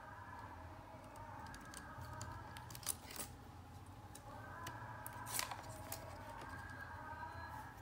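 A few sharp clicks, the loudest about three seconds in and about five and a half seconds in, over a faint wavering tone that sounds in two stretches of about three seconds each.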